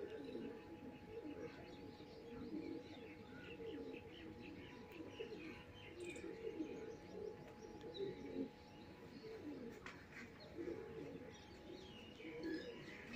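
Pigeons cooing over and over in low warbling phrases, with small birds chirping higher up and a faint steady hum underneath.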